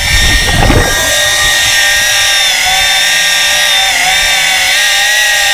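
Hydraulic chainsaw running and cutting into a wooden piling underwater, a steady whine that sags slightly in pitch midway as the diver leans into the cut. The chain is really dull.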